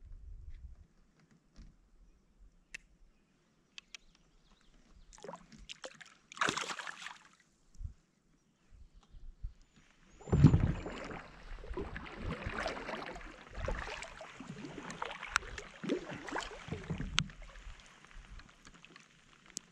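Water sloshing and splashing around a kayak's plastic hull. The first half is quiet with a few small knocks and one brief splash about six seconds in; from about ten seconds in the sloshing runs on continuously, with many small taps.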